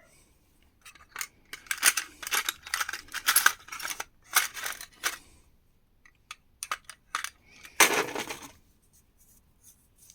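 Small metal hardware items (screws, pins and odds and ends) clinking and rattling as they are rummaged through and handled in a drawer, in bursts of clicks with a longer scrape about eight seconds in.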